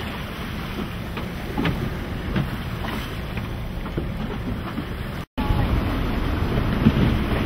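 Wind buffeting the microphone and the sea rushing around a boat, a steady low rumbling noise with a few faint clicks. It cuts to a split second of silence about five seconds in, then comes back a little louder.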